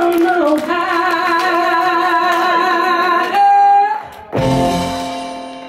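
Live band music with electric guitars: a long held, wavering note, a short break about four seconds in, then the whole band hits a chord together that rings out and fades.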